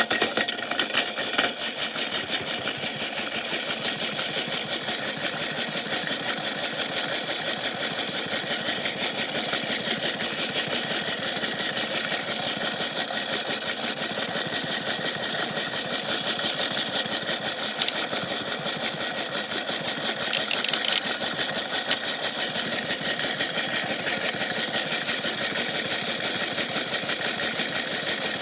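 Washing machine running with a big rock inside it, a steady, fast, dense rattle of many small knocks, with a few harder knocks in the first couple of seconds.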